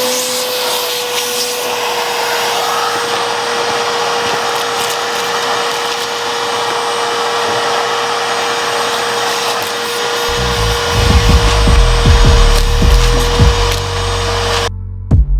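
Electric grinder running steadily against rusted car sheet metal, a continuous abrasive hiss over a steady motor whine, stripping rust from a 1972 Buick LeSabre's quarter panel; it cuts off abruptly near the end. From about two-thirds of the way in, music with a heavy rhythmic bass plays over it.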